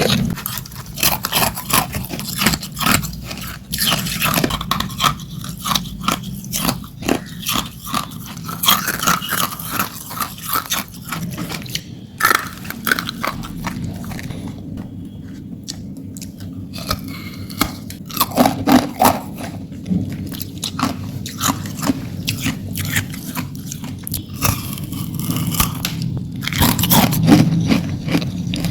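Hard ice being bitten and chewed close to the microphone: irregular sharp crunches and cracks, thinning out for a few seconds about halfway through and coming thick again near the end.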